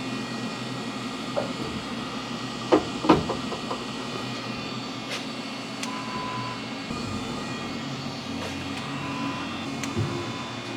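Milling machine cutting with a 1-inch end mill: a steady machine drone with a few steady tones, and a couple of sharp clicks about three seconds in.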